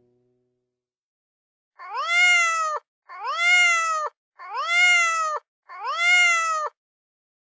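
Domestic cat meowing loudly four times in a row, each meow about a second long and almost identical, rising in pitch and then dropping off at the end. The meows start about two seconds in, after a moment of silence.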